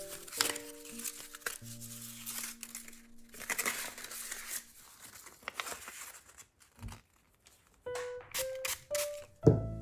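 Paper crinkling and rustling as strips of pre-cut, water-activated custom paper tape are handled, over light background music that drops out for a moment about seven seconds in.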